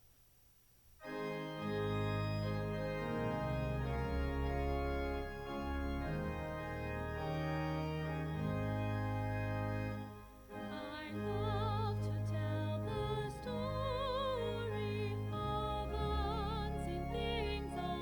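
An organ starts sustained chords with a deep steady bass about a second in; after a short break near the middle, a singing voice with strong vibrato comes in over the organ, a sung response in a church service.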